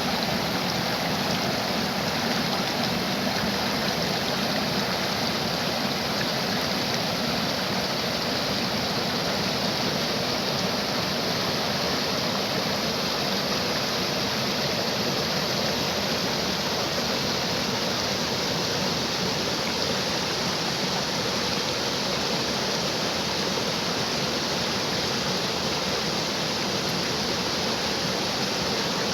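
Running water, as of a stream, flowing with a steady, even rush that does not change.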